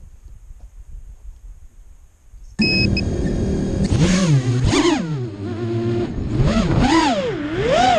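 Faint outdoor wind noise, then about two and a half seconds in a quadcopter drone's electric motors come in loudly and close up. Their whine keeps rising and falling in pitch as the throttle changes.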